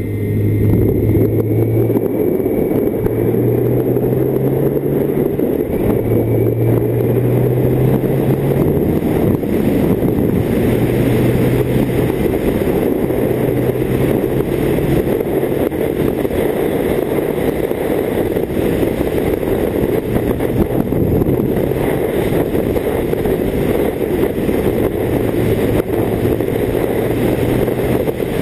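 BMW K1600GT's inline-six engine running under way, its low note stepping up and down with the throttle in the first ten seconds, mixed with heavy wind rush.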